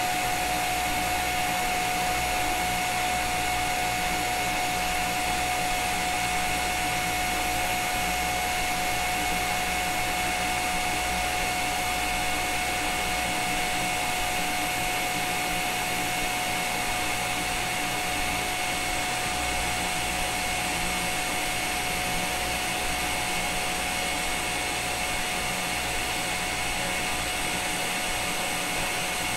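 TIG welding arc on stainless steel at about 75 amps, a steady unbroken hiss with a constant pitched tone running through it.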